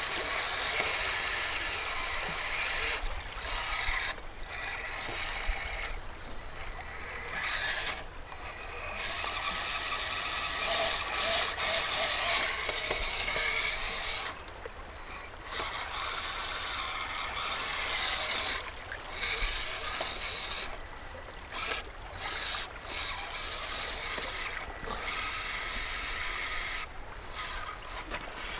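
Losi Mini Rock Crawler's small brushed electric motor and geared drivetrain whining and grinding in short bursts, stopping and starting again and again as the throttle is worked while it crawls over rocks.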